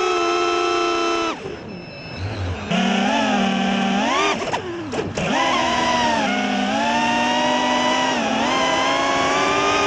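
Quadcopter drone's electric motors and propellers whining, the pitch rising and falling with the throttle as it chases and banks. The whine drops away for about a second and a half a little over a second in, then swoops sharply down and back up about five seconds in.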